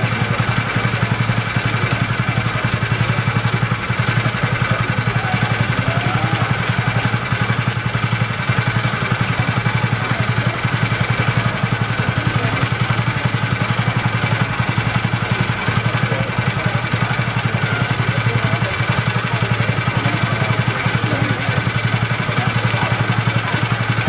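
Electric fish scaler running steadily with a low hum and a fast, even rattle as it strips the scales off a parrotfish.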